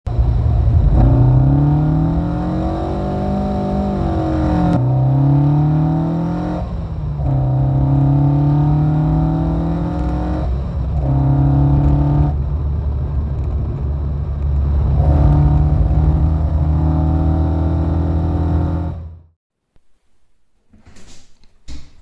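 In-cabin sound of a 1972 Alfa Romeo Giulia Super's twin-cam four-cylinder engine under hard acceleration. The revs climb and drop back at each gear change, several times over. It cuts off suddenly near the end, leaving a few faint clicks.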